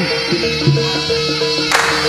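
Javanese jaranan accompaniment music: a reed-like wind melody holds long notes, stepping between a few pitches, over the ensemble. A short noisy crash near the end.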